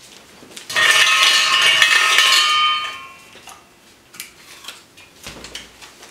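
Plastic draw capsules rattling and clattering inside a metal trophy cup as they are mixed by hand, the cup ringing, for about two seconds. A few small clicks follow as a capsule is handled and opened.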